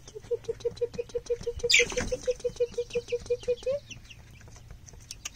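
Young chickens (pullets) in a coop. One gives a rapid, even trill of about eight short notes a second for some three and a half seconds, with a sharp rising chirp about two seconds in. Light scratching clicks come through throughout.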